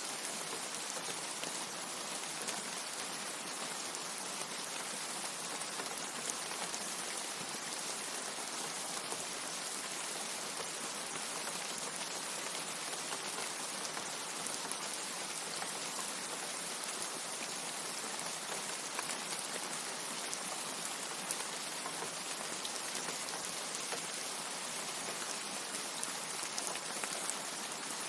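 Steady rain, an even hiss with scattered small droplet ticks.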